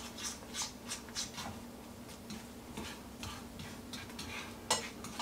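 A cooking utensil scraping and tapping against a frying pan while beaten eggs are stirred for an omelet. Quick strokes come about three a second for the first second and a half, then scattered ones, with a sharper tap near the end, over a faint steady hum.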